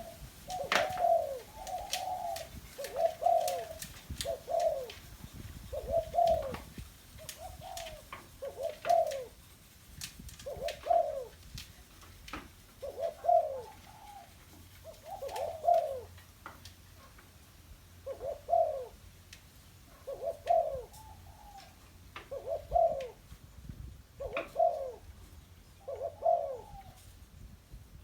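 A captive hybrid spotted dove, a decoy bird, cooing over and over, one short phrase every second or two, in the loud 'single kuk' calling style dove keepers prize. Sharp clicks sound between the coos, mostly in the first half.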